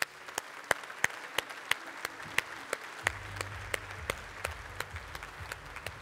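A large audience applauding, with sharp individual claps standing out above the steady patter. A low hum comes in about halfway through.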